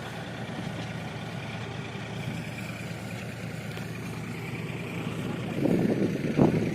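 Tractor engine running steadily at work in a potato harvest, with a louder rattling stretch and a sharp knock near the end.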